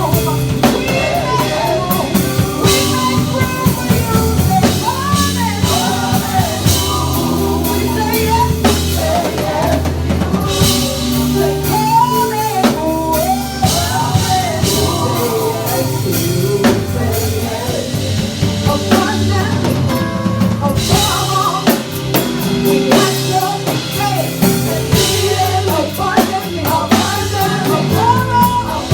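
Live church worship music: a band with a drum kit keeping a steady beat under a sung melody line.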